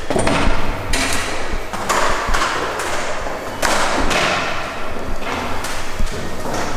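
Footsteps climbing a spiral staircase with wooden treads on a metal frame, a thud at each step, roughly two steps a second.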